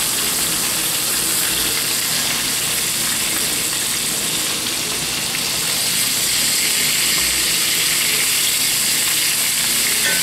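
Flour-dredged pork chops frying in hot oil in a cast iron skillet, a steady sizzle, with a few light scrapes and clicks of a metal turner against the pan as the chops are turned.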